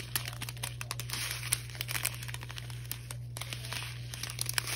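Strip of small sealed plastic bags of diamond-painting drills crinkling and crackling as it is handled.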